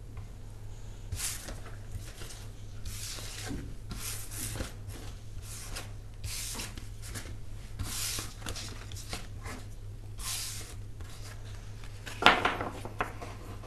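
Soft rubbing strokes, one every half second to a second, over a steady low hum, with a louder short sound about twelve seconds in.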